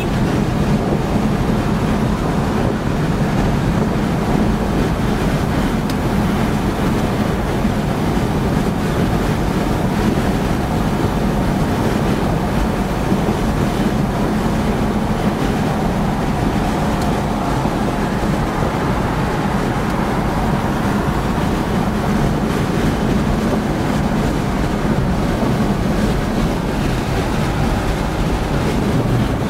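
1980s Toyota SR5 4x4 pickup cruising at highway speed, heard from inside the cab: a steady engine drone under road and wind noise.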